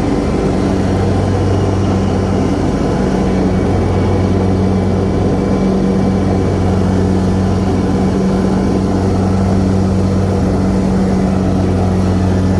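Toro Z Master 6000 zero-turn mower's 26.5 hp Kohler Command Pro EFI V-twin engine running at a steady speed with the 60-inch deck's blades engaged: a steady, even drone. The deck is smooth, with no rattling.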